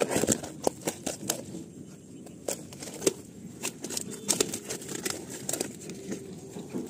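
A cloth sack holding caught tilapia being handled: irregular rustling with sharp clicks and knocks, the loudest right at the start and a cluster a few seconds in.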